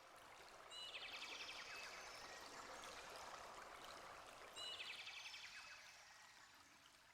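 Faint recorded nature ambience: a running stream, with a bird's rapid trill repeated three times.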